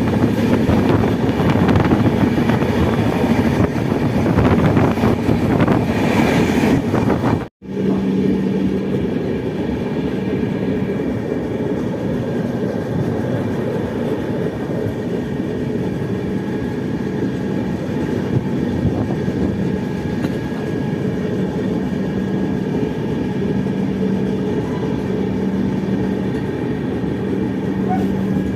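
Passenger train running along the track: a steady rumble of the coach and wheels. About seven and a half seconds in, the sound cuts out for an instant, then resumes a little quieter.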